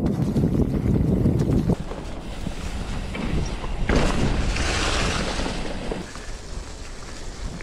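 Wind buffeting an action camera's microphone while riding a mountain bike, with the tyres rustling through dry fallen leaves on a dirt trail. The low rumble drops off sharply about two seconds in. A brighter hiss of leaves and rolling comes up for a couple of seconds around the middle.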